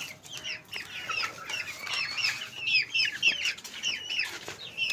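A group of young chickens peeping without pause: many short, high, falling calls, several a second, overlapping one another.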